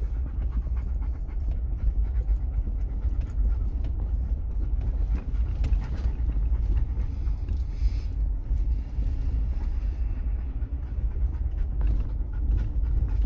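Low, continuous rumble of a car driving slowly over a bumpy, snowy dirt road, heard inside the cabin, with small rattles and a dog panting close by.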